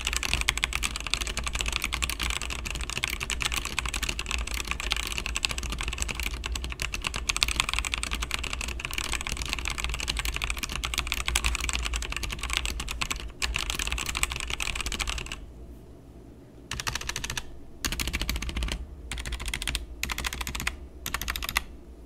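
Stock, unmodified Leaven K550 budget mechanical keyboard being typed on fast and steadily. About fifteen seconds in the typing stops, then comes back as several short bursts of keystrokes. The owner judges this stock sound not great.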